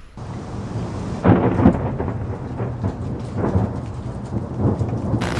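Thunder rumbling over steady rain, starting suddenly, with the loudest surges a little over a second in.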